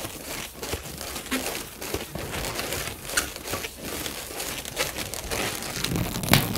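Inflated latex modelling balloons rubbing and crinkling against each other and the hands as they are twisted and handled, in irregular short rubs, with a louder sharp one near the end.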